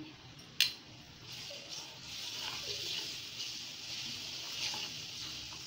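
Garlic and ginger paste sizzling in hot oil and spices in a pan as a spatula stirs it, with a steady hiss from about a second in. A single sharp knock of a utensil against the pan comes about half a second in.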